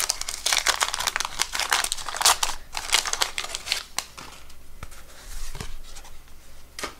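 Wax-paper wrapper of a 1988 Donruss baseball card pack being torn open and crinkled. The crinkling is densest over the first four seconds, then gives way to quieter handling of the card stack.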